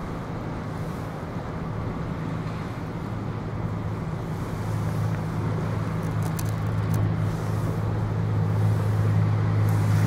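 Water taxi's engine droning as the fast boat approaches on the river: a steady low hum that grows slowly louder.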